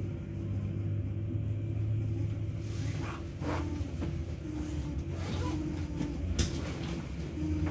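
Inside a 71-623-02 tram car underway: the steady low hum of its running gear and traction drive, with a higher steady tone that drops out and returns, and a few short knocks and rattles from the car.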